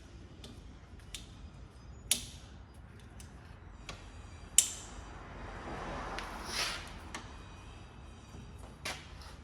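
Scattered sharp metallic clicks and taps from hand work on drum brake shoe hardware, the two loudest about two and four and a half seconds in, with a short scraping rustle around six to seven seconds.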